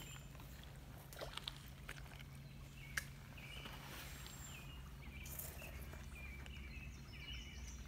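Faint outdoor ambience by a flowing creek: a steady low rumble with faint high chirps, a few soft clicks just after one second, and one sharp click about three seconds in.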